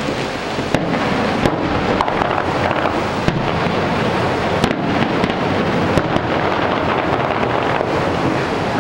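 Fireworks going off in a steady barrage: sharp bangs every half second to second over a continuous rushing noise.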